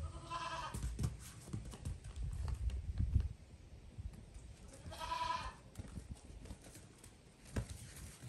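Goat kid bleating twice, two short calls about five seconds apart, with soft knocks and thumps in between.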